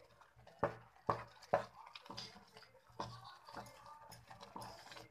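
A spoon stirring thick carrot paste in a pan on a gas stove, knocking and scraping against the pan in a string of irregular clicks while the paste is cooked down to dry out its water.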